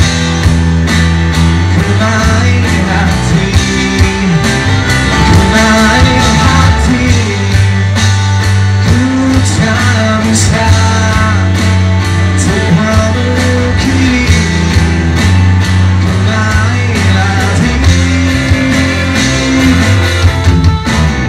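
Live band music: a male singer sings a pop song over electric guitar and drums, with a steady beat and a strong bass line.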